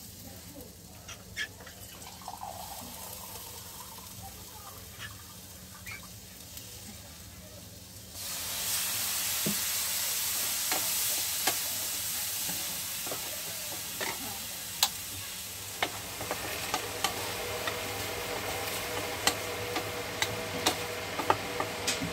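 A wooden spatula scraping and stirring vegetables in a hot non-stick pan dry-fried without oil, then about eight seconds in a sudden loud sizzling hiss as water hits the hot pan, easing off over the following seconds while the spatula keeps stirring and clicking against the pan.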